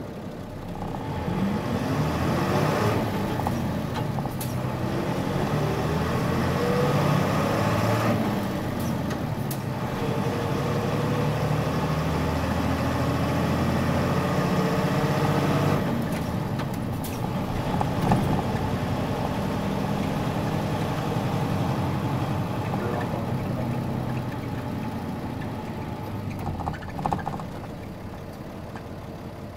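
Diesel engine of a 1999 Nissan Diesel Space Runner (KC-RM211GAN) non-step bus, running on the road. It accelerates with its pitch rising through the gears over the first several seconds, runs steadily, and eases off near the end. A few short clicks are heard about halfway through.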